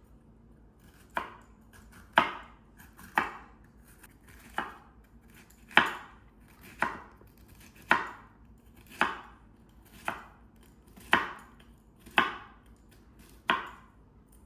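Kitchen knife slicing a bitter melon on a cutting board, about a dozen separate cuts at roughly one a second, each a sharp knock of the blade on the board.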